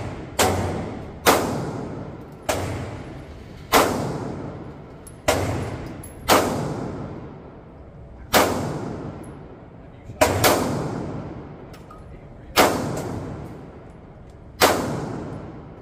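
Pistol shots fired one at a time, about ten of them, roughly one every one to two seconds at an uneven pace. Each crack rings on in the echo of an indoor concrete shooting range.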